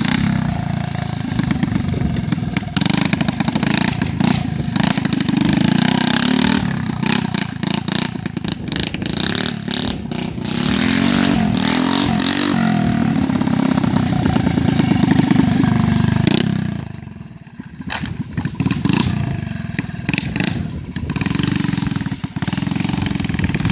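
An Agrale engine running, its revs rising and falling under throttle. It drops away briefly about three-quarters of the way through, then picks up again.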